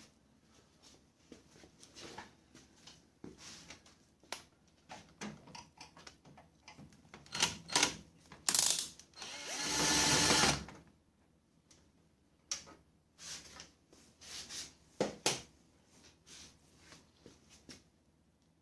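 Scattered mechanical clicks and rattles, with a louder whirr from a small motor that lasts about a second and a half a little past the middle.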